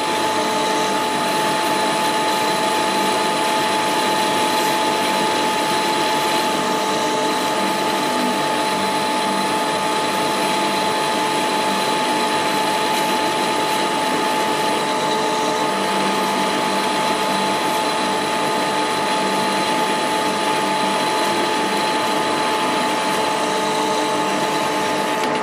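Metal lathe running steadily with a steady whine, its parting tool fed slowly by hand as it cuts through a bar of free-machining leaded steel to part off a nut.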